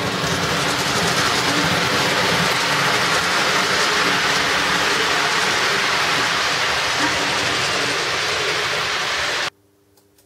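Recorded train running sound effect played through loudspeakers: a steady rumble and rail noise that cuts off abruptly about nine and a half seconds in.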